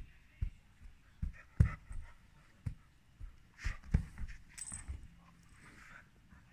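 Two dogs playing and tussling on a cushioned dog bed: a run of soft scuffles and sudden low thumps, the loudest about a second and a half in.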